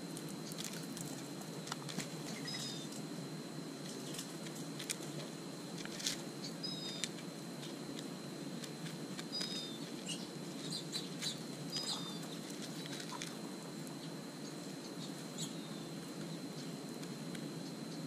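Mourning doves pecking seed from a plastic dish: an irregular scatter of sharp clicks and taps. A few short, high two-note chirps from a small bird come now and then, over a thin steady high tone.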